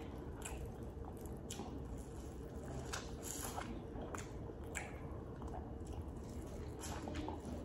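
A person eating: bites into soft, sauce-coated food and wet chewing, with irregular soft smacks and mouth clicks.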